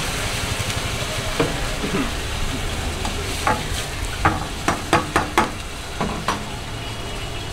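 Water poured into a hot steel wok, sizzling over the steady hiss of a gas burner. About halfway through, a metal ladle clanks sharply against the wok in a quick run of strikes, with one more a little later.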